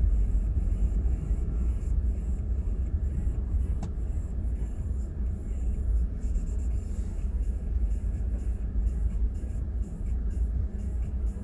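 Steady low rumble of a car being driven, engine and tyre noise.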